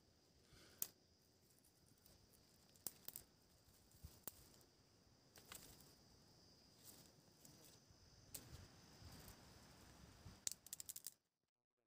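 Dry twigs and brush rustling and crackling as cut branches are handled, with scattered sharp snaps and a quick run of snaps near the end.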